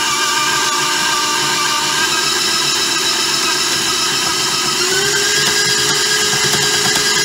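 An old KitchenAid stand mixer's motor running with a steady whine as its beater works crumbly pie-crust dough in the steel bowl; the pitch rises slightly about two-thirds of the way in and holds there.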